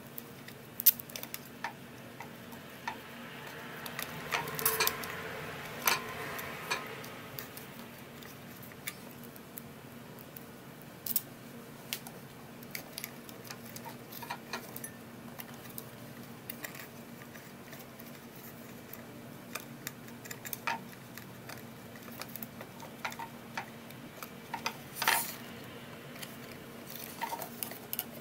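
Hands handling the small parts of a Shackman 102 Polaroid camera's shutter mechanism: scattered small clicks and taps, with a longer, noisier stretch about four to seven seconds in.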